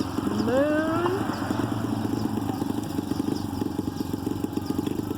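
Motorcycle engine revving up briefly about a second in, then running steadily with a fast, even firing pulse.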